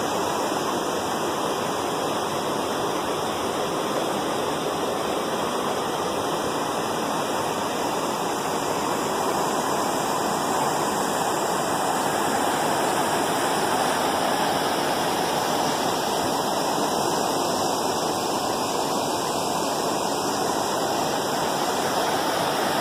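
Steady rushing water noise, even and unbroken, with no rise and fall of separate waves.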